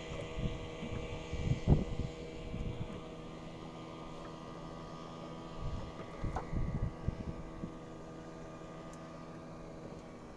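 Boat's motor running with a steady hum of several held tones, with scattered low knocks and thumps, the loudest about two seconds in and a cluster between six and seven seconds.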